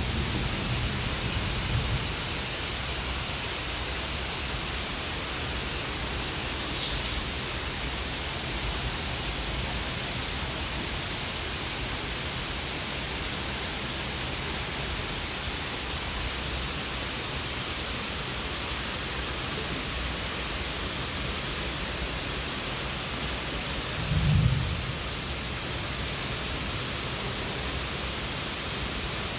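Heavy monsoon rain falling steadily, an even hiss. A brief low rumble sounds in the first two seconds and again near the end.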